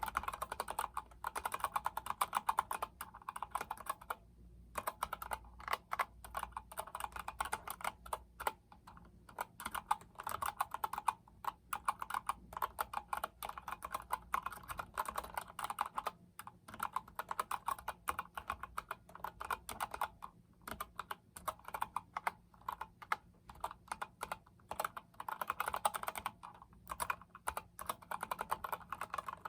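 Fast continuous typing on an Epomaker GK73X mechanical keyboard with Gateron Yellow linear switches: a dense run of key clacks, broken by a few brief pauses.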